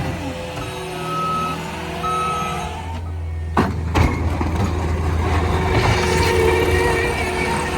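Cat 289 skid steer's diesel engine running while plowing snow, its backup alarm giving two beeps as it reverses. Two sharp knocks come around the middle.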